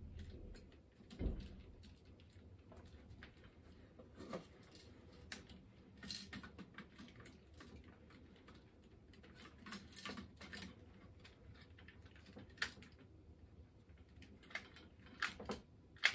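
Sparse, irregular light clicks and knocks of LEGO plastic parts being handled as a brick-built gun is fitted onto and swung on its tripod mount, with a duller knock about a second in.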